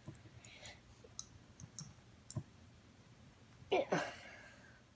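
A few faint, scattered clicks, then a brief falling vocal sound from a child, with breath, about four seconds in.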